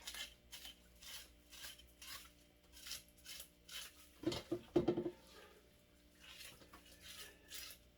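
Scales being scraped off a fresh fish against the grain, in repeated short rasping strokes at about two a second, with a louder knock about halfway through.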